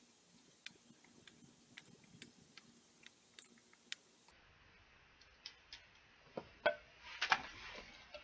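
Small scattered clicks of a Phillips screwdriver working a tiny screw out of the hard plastic housing of a Calista Perfecter hot brush, with a louder cluster of clicks and scraping near the end.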